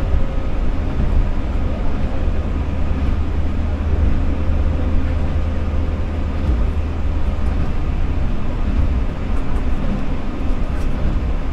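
Rubber-tyred Osaka Monorail train running along its guideway, heard from inside the front cab: a steady low rumble with a faint steady whine above it.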